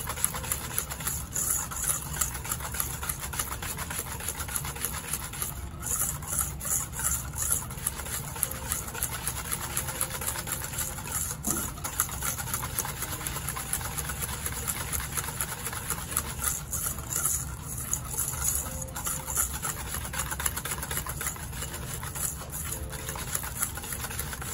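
Wire whisk beating eggs and granulated sugar in a stainless steel bowl in fast, steady strokes, rub-mixing until the sugar dissolves.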